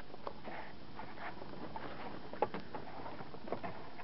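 Water lapping around a small fishing boat, with scattered light clicks and knocks.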